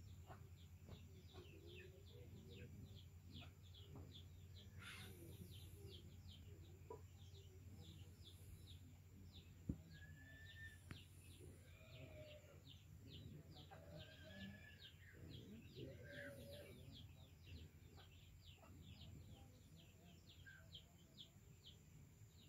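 Faint chirping: a short high call repeated about two to three times a second over a steady low hum, with a few fainter, longer calls around the middle and a single click about ten seconds in.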